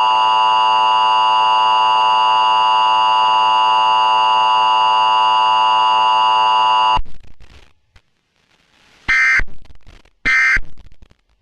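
Emergency Alert System attention signal: a loud, steady two-tone alarm that cuts off abruptly about seven seconds in. After a moment of quiet, three short higher-pitched electronic bursts follow about a second apart.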